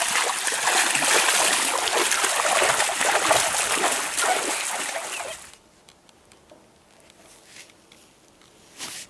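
Pool water being splashed hard by hand, a loud continuous spray and slosh of water that cuts off abruptly about five and a half seconds in, leaving near quiet.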